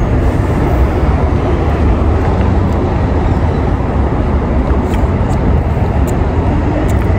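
Loud, steady low rumble of outdoor street noise, with no distinct events standing out.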